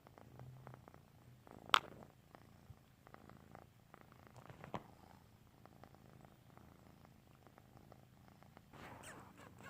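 Domestic cat purring steadily, with a sharp tap about two seconds in and a softer one near five seconds.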